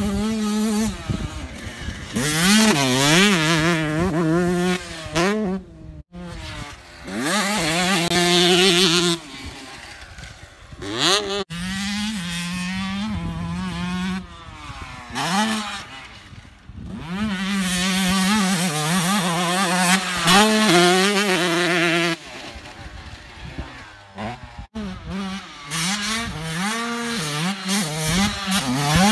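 2007 Yamaha YZ125's single-cylinder two-stroke engine being ridden hard on a motocross track: the revs climb in repeated rising sweeps through the gears, hold high for stretches, and fall away each time the throttle is closed.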